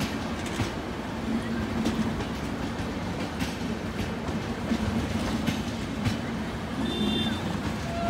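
LHB passenger coaches of an express train rolling past at speed: a steady wheel-on-rail rumble with irregular clicks as the wheels cross rail joints.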